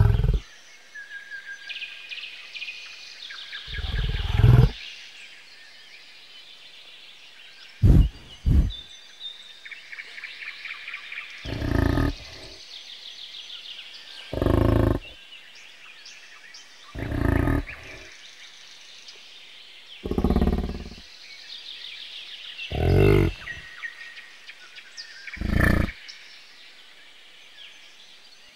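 A large bovine bellowing in short, deep calls, each under a second, repeated about every three seconds, with a quick double call about eight seconds in. Birds chirp and twitter between the calls.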